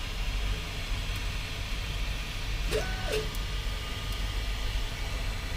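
UP Plus 2 3D printer running a print: a steady hum with one stepper-motor whine about three seconds in that rises in pitch, holds briefly and falls as the print head speeds up, travels and slows. It is laying down the raft, the base layer the part is printed on.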